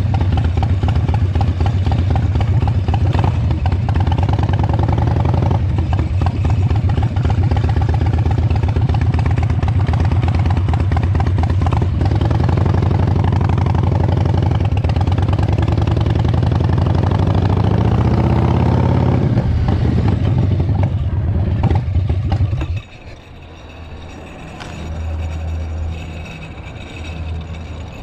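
1999 Harley-Davidson's V-twin engine running with a rapid, even pulse, its pitch rising in the middle as it revs and then falling back. About 23 seconds in the engine sound drops away abruptly, leaving a much quieter background.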